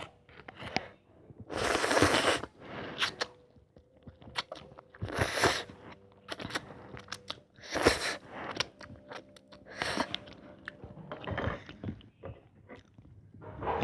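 Close-up eating of ramen noodles: mouth and chewing sounds, with several louder noisy bursts each lasting about half a second to a second, spread through the stretch.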